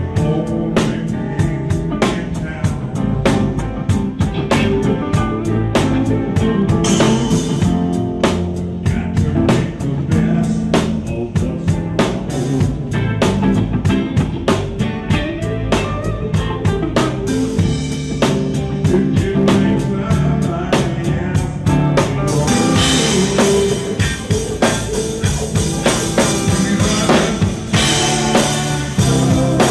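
Live rock band playing: drum kit keeping a steady beat over bass and guitar. The sound turns brighter and fuller about three-quarters of the way through.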